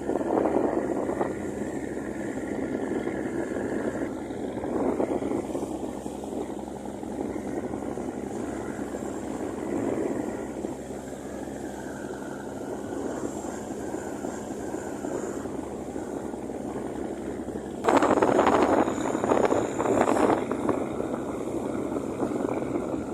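A ship's engine drones steadily underway, with the rush of water and wind over it. Near the end, a louder rushing surge lasts a couple of seconds.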